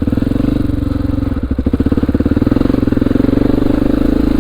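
Honda XR400R's single-cylinder four-stroke engine idling, its pulses coming evenly at a steady pitch.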